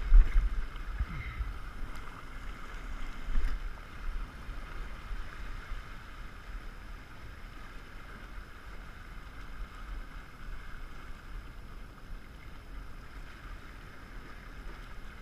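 Wind rumbling on the microphone over a steady wash of small waves on the rocks, with a loud bump right at the start and another about three and a half seconds in.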